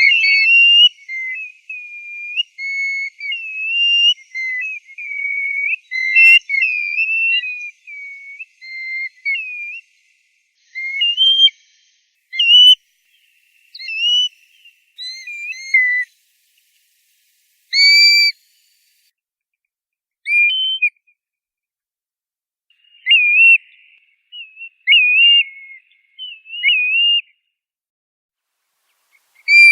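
Plovers giving clear whistled calls with slurred notes that rise and fall. For the first ten seconds or so several calls overlap in a busy run, then single calls come in short spaced-out bursts with silences between.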